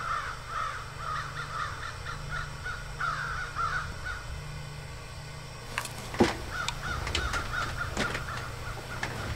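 Crows cawing in a rapid series of short calls, over a steady low hum, with a few sharp clicks from about six seconds in.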